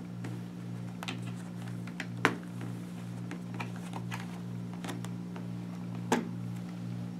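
Snap fasteners on a Schuberth C3 helmet's neck roll popping open, with handling clicks, as the neck roll is pulled free: two sharper snaps, about two seconds in and about six seconds in, with lighter ticks between, over a steady low hum.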